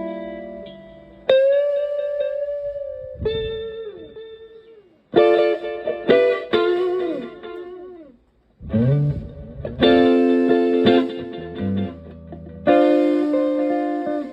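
Stratocaster electric guitar played through an Echorec-style PT2399 delay pedal into a Fender Twin Reverb–style amp: picked notes and chords ringing out and decaying, several notes bent down in pitch, with short pauses between phrases.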